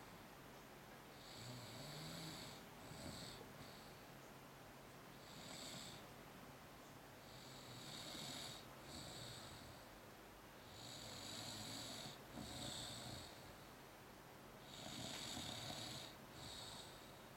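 A person snoring, about five snores one every three seconds or so, each a low rattling breath with a hissy edge.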